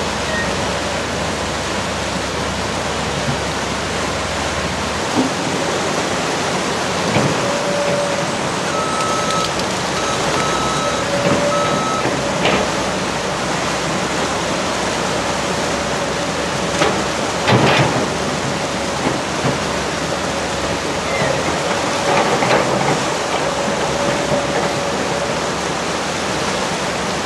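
Floodwater of a swollen, muddy river rushing in a steady wash of noise. An excavator working in the current is faintly heard under it, with a few knocks of its bucket and debris.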